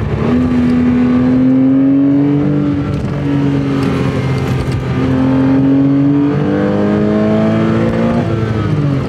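2007 Porsche Cayman's 2.7-litre mid-mounted flat-six, breathing through a Fabspeed aftermarket exhaust, pulling hard under acceleration. The note climbs in pitch, drops back a couple of times and climbs again, then falls away as the throttle comes off near the end.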